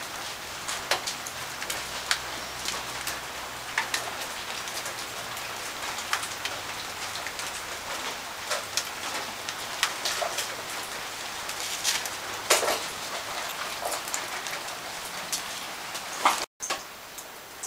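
Steady rain falling, with many irregular sharp ticks of drops through the steady pattering. The sound cuts out completely for a moment about sixteen seconds in.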